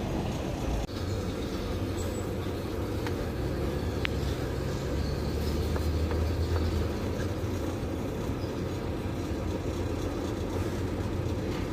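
Steady low rumble of an idling truck engine, with a few faint clicks over it.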